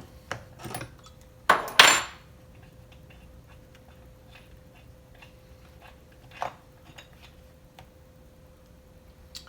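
Metal hand tools clinking and knocking against each other and the chainsaw while the spark plug is being taken out, with two loud clatters about one and a half to two seconds in and another knock near the middle. A faint steady hum runs underneath.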